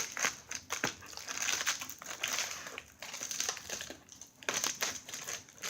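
Plastic packaging crinkling and rustling in irregular crackles as a mail-order package is opened and handled.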